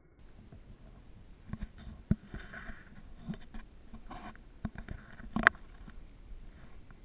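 Hiker's footsteps on a dirt trail with rustling of carried gear, heard through a body-worn camera: soft irregular thumps about every half second to a second. A sharper knock about five and a half seconds in is the loudest sound.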